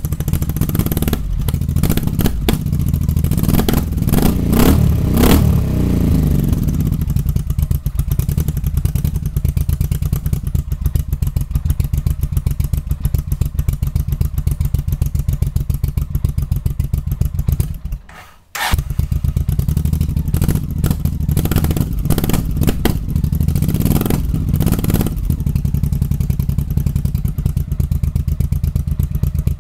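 Cold motorcycle engine idling with a steady beat, blipped up and back down twice, once a few seconds in and again near the end. Revved while still cold, it pops.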